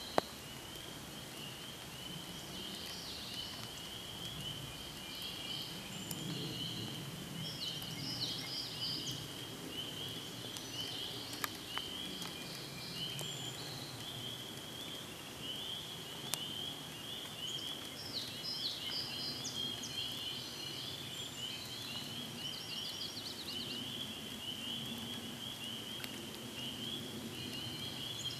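Outdoor pond-side wildlife ambience: a steady high pulsing trill, with scattered short bird calls above it and a few sharp ticks.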